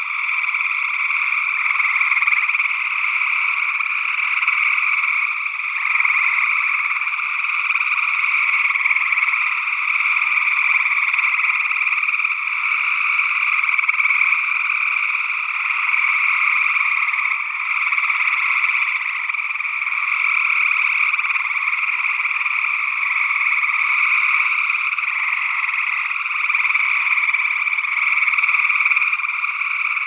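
Chorus of gray treefrogs trilling, their calls overlapping into a loud, steady din.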